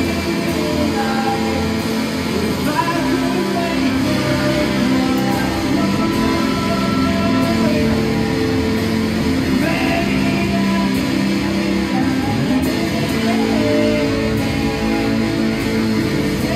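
A pop-punk band playing live, with guitar to the fore over a steady, loud, dense mix of held notes and occasional sliding pitches.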